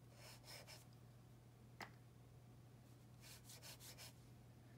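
Faint scratching of a pen nib stroked across paper while laying down an ink swatch: a few quick strokes near the start, a single light tick just before two seconds, then another run of about four strokes after three seconds.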